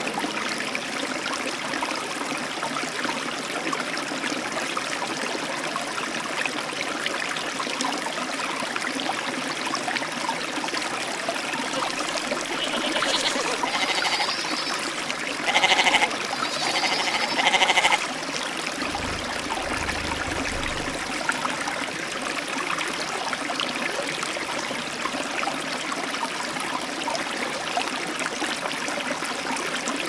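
Goat kid bleating about three times in quick succession, high and wavering, the last two loudest. Underneath is a steady rushing noise.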